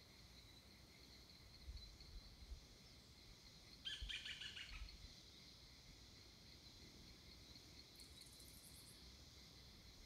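Faint steady high-pitched drone of insects, with a bird giving a short run of chattering calls about four seconds in and a brief very high trill about eight seconds in. A few soft low bumps come and go.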